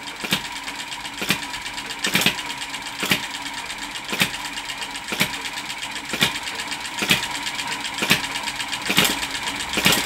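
Stirlingkit B01 model vertical hit-and-miss engine running and driving a toy Ferris wheel through belts and a speed reduction unit. It makes a steady whirr with a sharp click about once a second and lighter ticks between. The engine runs easily under this light load, not labouring.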